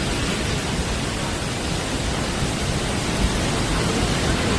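Flooded river rushing: a steady roar of water with a low rumble underneath.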